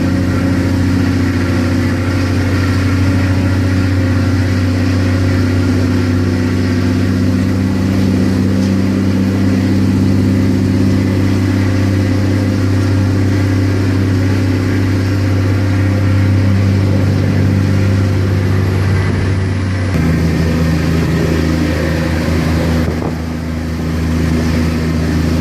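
380 hp Cummins diesel engine of a Yutong ZK6129HE coach running steadily under way. Its note changes abruptly about twenty seconds in.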